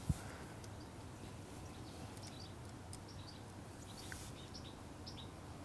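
Small birds chirping faintly and repeatedly over a low steady hum, with a single short low thump just at the start.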